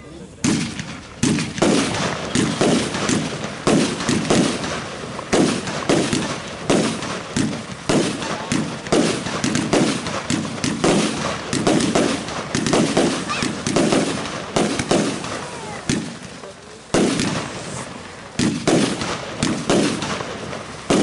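Lesli 'Atomic Sisters' compound fireworks cake firing: a dense, fast barrage of launch shots and bursting effects. It starts about half a second in and breaks off briefly about three-quarters of the way through before resuming.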